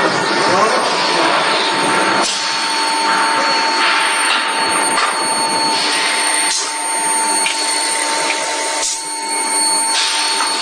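Automatic forging press line running: a steady, loud machine noise with a constant whine, broken by a few sharp clanks.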